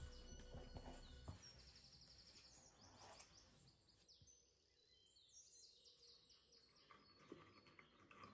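Faint birdsong: quick series of high chirps, coming twice, over near silence. Soft background music ends about a second in.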